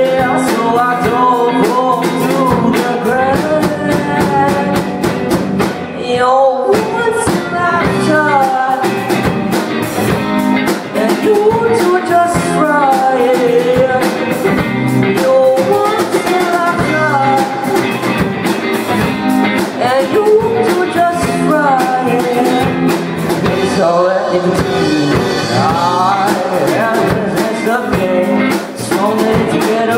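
A live rock band playing: electric guitars and a drum kit, with a singer's voice over them.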